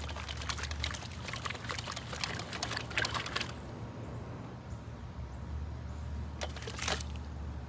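A long pole with a blue plastic head jabbed into a small muddy water-filled hole, splashing and sloshing the muddy water in a dense run of small splashes for about the first three and a half seconds, then again briefly near the end.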